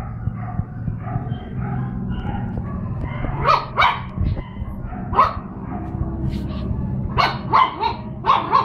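Puppies barking at play in short, sharp yaps: two barks about three and a half seconds in, one at about five seconds, then a quick run of five barks in the last second and a half. A steady low hum runs underneath.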